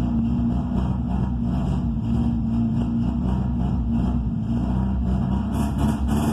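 Volkswagen Gol with a straight-pipe exhaust running at a steady, unchanging speed, the open exhaust giving a loud rumble.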